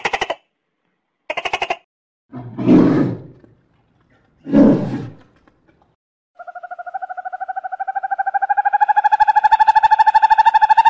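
A big cat roaring twice, rough and low, after two short buzzy calls. About six seconds in a long, rapidly pulsed call with a clear pitch begins and rises slightly.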